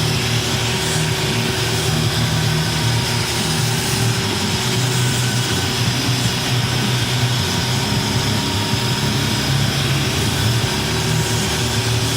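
DeWalt 60-volt cordless angle grinder with a grinding disc running steadily against thick steel, without a break.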